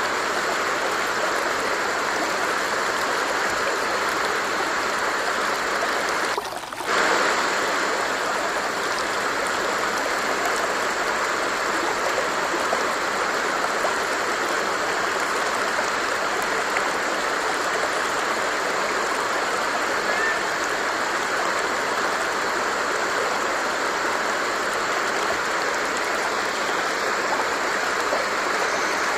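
Water running in a stream, a steady rushing and babbling flow, with a brief drop in level about six and a half seconds in.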